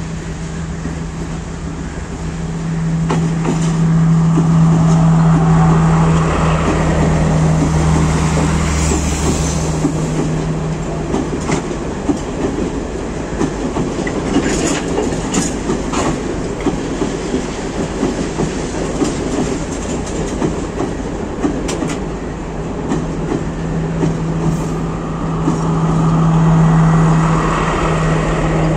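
Sri Lanka Railways Class S12 diesel multiple unit passing close by. The diesel engine of the leading power car hums steadily as it draws near and goes past. The carriages then go by with a quick clatter of wheels over the rail joints, and the engine hum of the rear power car returns near the end.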